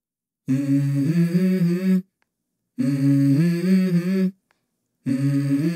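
Wordless hummed vocal phrases opening a song: three short melodic phrases, each about a second and a half long, with silent gaps between them.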